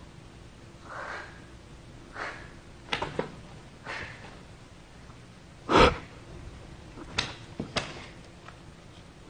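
A person's sharp breaths and sniffs, with a few clicks and one louder knock just before six seconds in.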